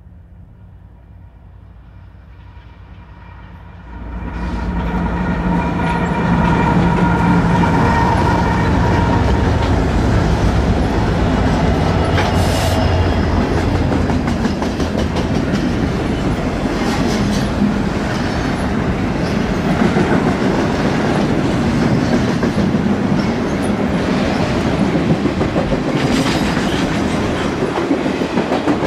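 BNSF double-stack intermodal freight train passing close: the sound jumps up suddenly about four seconds in with the steady drone of the diesel locomotives, then the stack cars roll by with a constant rumble and wheel clickety-clack.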